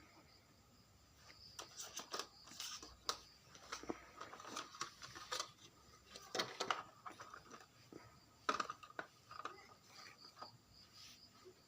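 Packaging being handled and unwrapped during a phone unboxing: irregular rustling and crinkling with sharp clicks and taps, busiest from about a second in until near the end.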